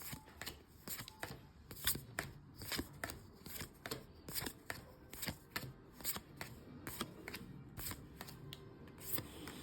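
Paper trading cards handled one after another, each card giving a sharp snap or tap about two to three times a second.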